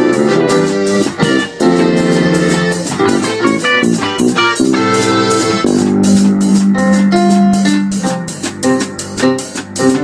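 A small band plays live: electric guitars and an electronic keyboard trade chords and sustained notes over a steady beat.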